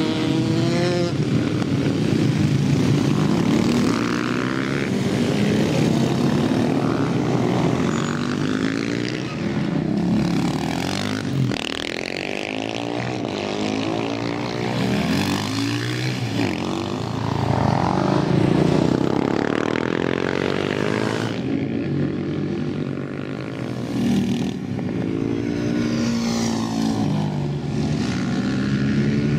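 Several supermoto motorcycles riding round a practice course, their engines revving up and down, the pitch rising and falling again and again as bikes accelerate and pass.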